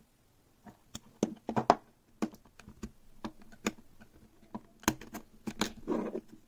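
Utility knife blade scraping and clicking against the edge of a 3D-printed plastic case while trimming it, in irregular bursts of sharp clicks, with a longer scrape near the end.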